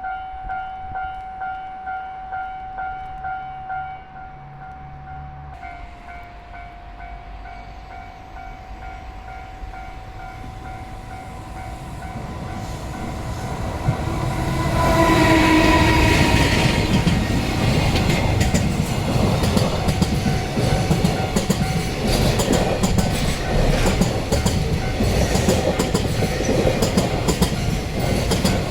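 Japanese level-crossing warning bell ringing in a steady clang about twice a second, while a train approaches, gives a short horn blast about fifteen seconds in, and runs past with its wheels clacking over the rail joints.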